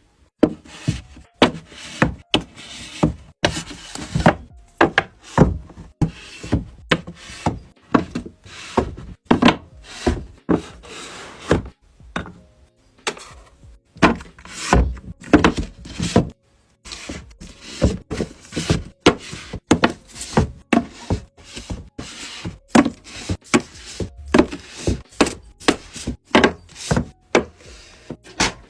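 Fingers and nails tapping and knocking on manga books, a shelf and a figure's display case: rapid, irregular taps, two or three a second, with a brief pause partway through.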